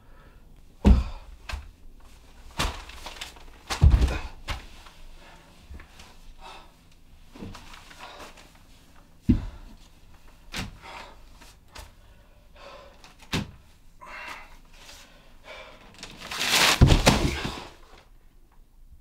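Dull thumps in a small room, about five of them spread out, the loudest about a second and four seconds in. Near the end comes a longer, noisy crash with paper rustling as a person falls onto a wooden floor covered in loose sheets of paper.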